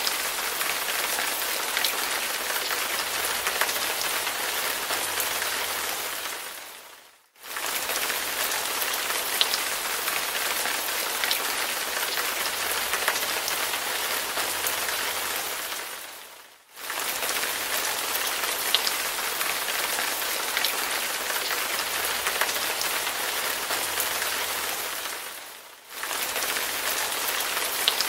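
Rain sound effect: a steady hiss of falling rain with scattered sharper drop ticks. It fades out about every nine seconds, three times, and each time starts again at once, as a short recording played on a loop.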